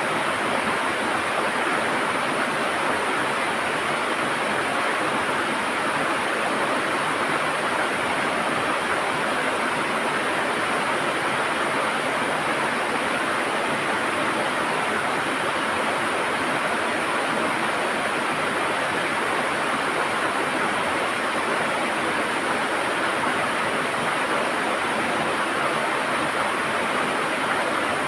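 River water rushing and gurgling over rocks, a steady, even sound.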